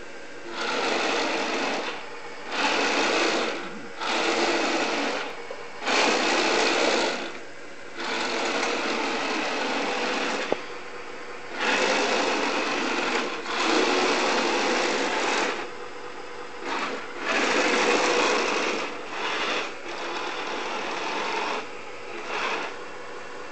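Electric gear motors of a radio-controlled model Tiger I tank whirring in a dozen or so start-stop bursts of one to two seconds as it is driven about.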